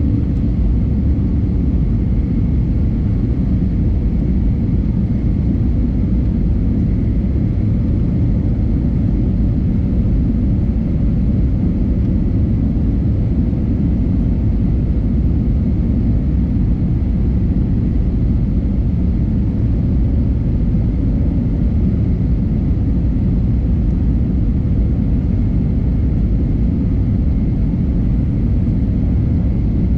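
Airbus A320neo cabin noise in flight: a steady, loud rumble of airflow and the geared turbofan engines, with a faint steady whine, unchanging throughout.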